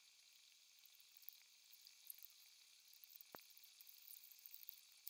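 Near silence: a faint steady hiss, with a few faint ticks.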